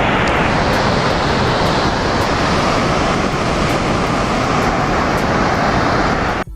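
Loud, steady rush of a swollen river in flood, with wind rumbling on the phone's microphone. It cuts off suddenly near the end.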